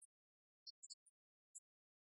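Near silence, broken by a few faint, very short high-pitched ticks at irregular intervals.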